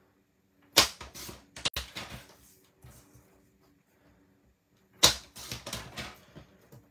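Sliding-blade paper trimmer cutting cardstock, twice: each pass starts with a sharp click and runs on as a quick rattle of clicks for a little over a second. The first pass is about a second in, the second about five seconds in.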